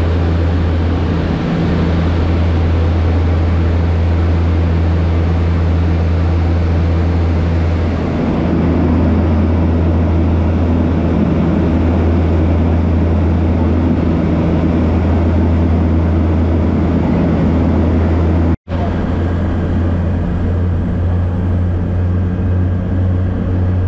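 De Havilland Canada DHC-6 Twin Otter's Pratt & Whitney PT6A turboprop engines and propellers droning steadily, heard from inside the cabin in flight: a loud deep hum with a rushing noise over it. It drops out for an instant about 18 seconds in.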